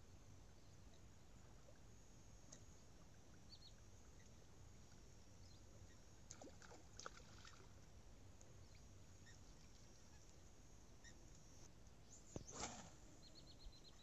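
Near silence: faint outdoor background with a few scattered faint clicks and short high chirps, one brief louder noise about twelve and a half seconds in, and a quick run of faint high ticks near the end.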